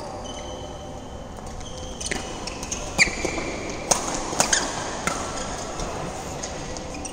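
Badminton rally: a few sharp racket strikes on the shuttlecock, the loudest about three seconds in, with high squeaks of sneakers on the court floor.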